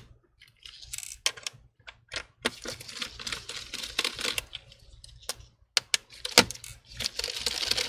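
Irregular small clicks, taps and scraping of a screwdriver and gloved hands working on a laptop's metal and plastic chassis, as small screws at the hinge are turned out.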